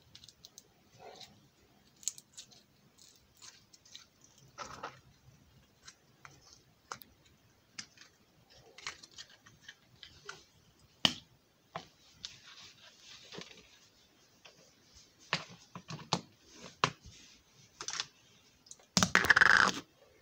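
Slime being handled and squished, with small plastic tubs knocked against each other and the floor: scattered irregular clicks, taps and soft squishes, and one louder, noisy sound lasting about half a second near the end.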